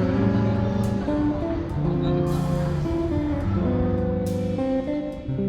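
Music led by guitar, with chords that change about once a second.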